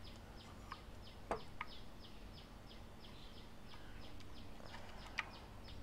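A bird chirping steadily in the background, short high falling notes about three a second. Over it come a few small sharp clicks from handling a vintage Argus camera and its lens, about a second in and again near the end.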